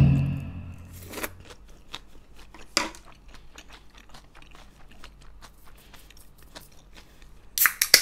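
Close-mouthed chewing of a last mouthful of yeolmu bibimbap with crunchy young-radish kimchi: many small wet clicks and crunches. It opens on the fading ring of a knock, and near the end a Pepsi can is cracked open with a short hiss.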